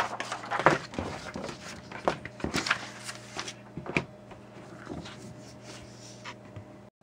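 A sheet of paper rustling and sliding as it is laid flat on a desk, with a few light knocks of handling; the handling dies down after about four seconds.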